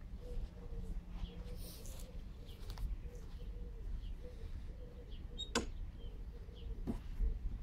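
Quiet garden ambience before the mower starts: a pigeon cooing over and over and small birds chirping over a low wind rumble, with two sharp clicks in the second half.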